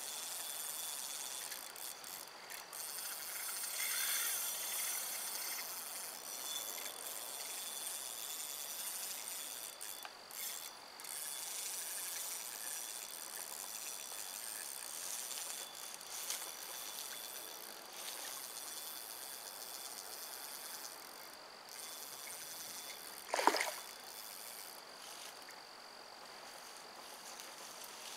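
Steady hiss of running water at the bank, with one short, loud splash about 23 seconds in as a hooked northern pike thrashes at the surface.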